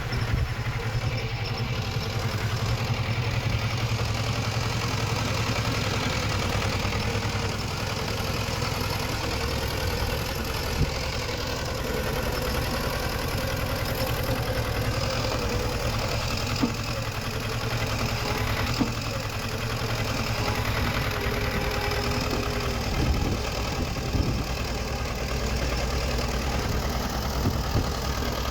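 Diesel engine of earthmoving machinery running steadily, with a few short sharp knocks.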